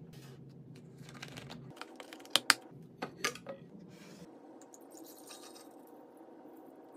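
Several sharp clicks and taps between about two and three and a half seconds in, from the juice carton and glass carafe being handled. Then a soft hiss of orange juice pouring from the carton into the glass carafe, over a low steady hum.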